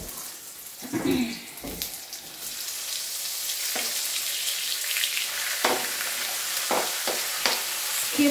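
Onions sizzling in a hot frying pan, the sizzle growing louder and fuller from about three seconds in as raw chicken pieces are scraped off a cutting board into the oil. A few sharp knocks of a knife and utensils against the pan and board.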